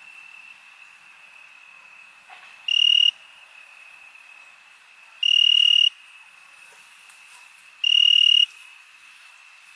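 Crickets chirping at night: a steady high-pitched chorus, with a nearer insect giving a loud half-second trill three times, about every two and a half seconds.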